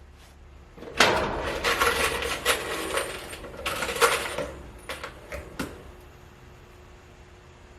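Loose steel drywall screws clinking and rattling together as they are handled, for about five seconds, then it stops.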